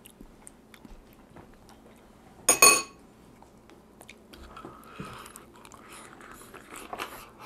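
Eating a cooked lobster tail by hand: faint biting and chewing with small wet clicks in the second half. About two and a half seconds in there is one short, loud, high-pitched sound.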